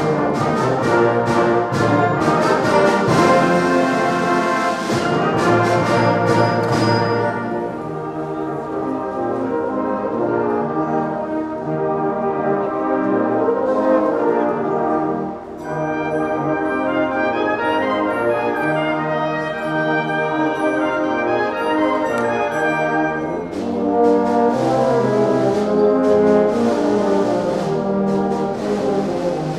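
Brass-led wind band playing a Christmas medley: trumpets, trombones, euphoniums and tubas over woodwinds. Percussion strokes run through the first few seconds and again near the end.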